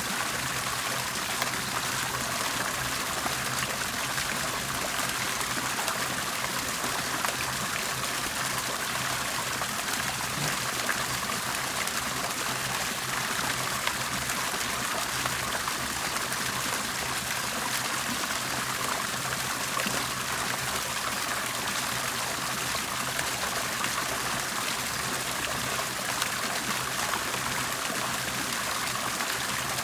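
Water bubbling and trickling steadily, an even, unchanging wash of water sound, with a faint steady low hum underneath.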